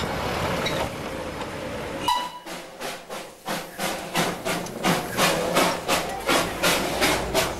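Darjeeling Himalayan Railway steam locomotive working, its exhaust beating in a steady rhythm of about three chuffs a second that starts about two seconds in and grows louder. Before it, a steady rushing noise.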